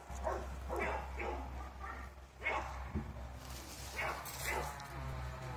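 Dogs barking: about seven short barks and yips with gaps between them, over a steady low rumble.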